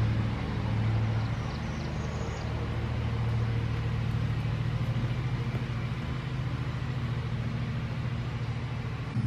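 A vehicle engine idling, a steady low hum with an even pulse.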